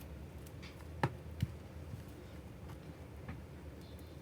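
A few light taps and clicks from handling a boxed album and its contents, two sharp ones close together about a second in, over a low steady hum.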